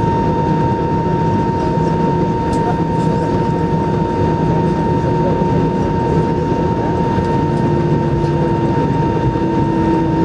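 Airbus A320-214 cabin noise while taxiing, heard inside the cabin: the CFM56-5B engines running at idle as a steady hum, with a constant high tone over it and a second, lower tone coming in near the end.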